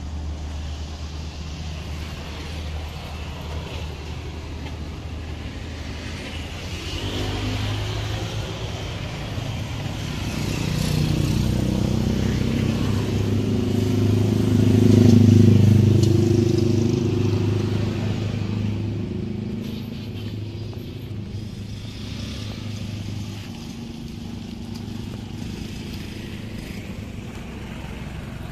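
A motor vehicle engine running, growing louder to a peak about halfway through and fading away again.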